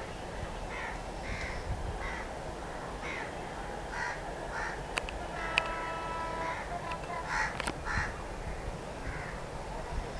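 Crows cawing in short calls, repeated every second or so, with a few sharp clicks and a brief faint held tone around the middle.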